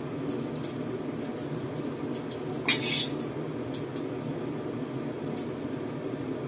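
Oil dripping from fried eggplant in a wire spider strainer back into a wok of hot oil: small scattered ticks and crackles over a steady low rush, with one sharp metal clink a little under three seconds in, the strainer touching the wok.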